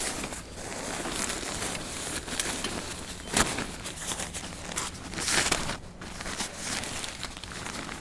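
Fabric rustling and crinkling as an angler's unhooking mat is pulled out and spread on the ground, with irregular handling noise and louder swells about three and a half and five and a half seconds in.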